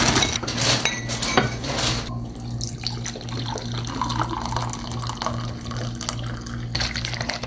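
Water running from a tap into a sink, with a few clinks of dishes. The water shuts off about two seconds in, leaving faint clatter over a steady low hum.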